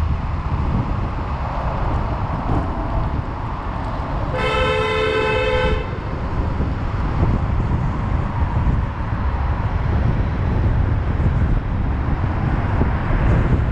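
Steady low rumble of street traffic, with one vehicle horn honk lasting about a second and a half, about four seconds in.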